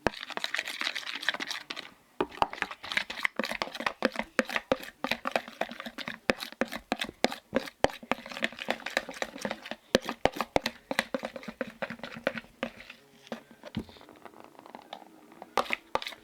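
Slime mixture being worked, a dense run of sticky, wet clicks and crackles. There is a short pause about two seconds in and a quieter spell about thirteen seconds in.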